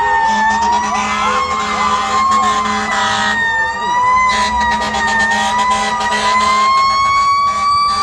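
Fire truck sirens sounding continuously in a slowly wavering wail, joined by a fire truck air horn blowing two long blasts: the first lasts about three seconds, and the second runs from about four to nearly seven seconds in.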